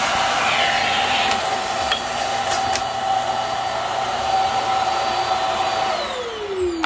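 Hart upright vacuum cleaner running steadily on carpet with a held whine, and a few light clicks in the first half. About six seconds in it is switched off and the motor whine falls away as it spins down.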